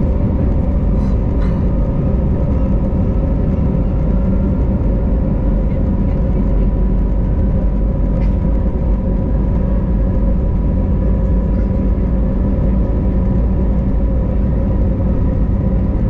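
Airbus A321neo's Pratt & Whitney PW1100G geared turbofan engines at takeoff thrust, heard from inside the cabin: a loud, steady low rumble with a steady high hum over it.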